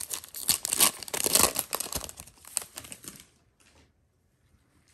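A foil-wrapped Donruss Optic football card pack being torn open and crinkled, a dense crackling rustle that stops a little after three seconds in.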